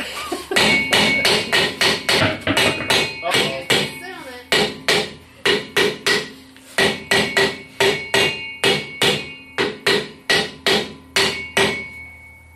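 A hammer strikes the front brake drum of a VW Thing over and over, working a drum that is rusted fast. The quick metal blows come about three a second with short breaks, and the drum rings on between them. The blows stop shortly before the end.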